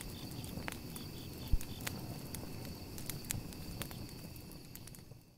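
Night campfire ambience: a wood fire crackling with scattered sharp pops, the strongest about a second and a half in, over crickets chirping steadily. It fades out near the end.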